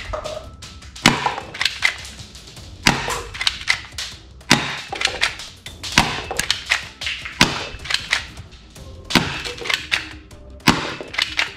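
Sharp plastic clicks and knocks from a black toy pistol being handled, a loud one about every second and a half with smaller ones between, over faint background music.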